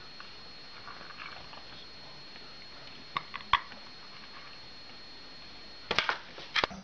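A few sharp clicks about three seconds in, then a quick burst of knocks and clattering near the end as a parrot's beak works at a plastic food bowl and tips it up, over a faint steady hiss.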